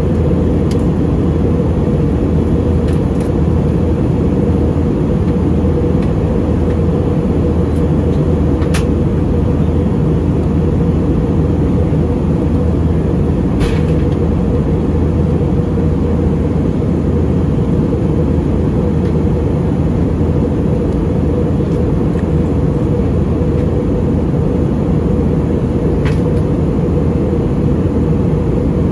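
Steady in-flight cabin noise of an Airbus A320neo heard from a window seat: a loud, even drone of the engines and rushing air, with a steady hum and a few faint ticks.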